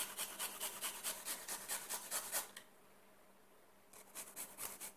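Fresh garlic clove rasped across a small metal hand grater in quick strokes, about five a second. The grating pauses for over a second, then a shorter run of strokes follows near the end.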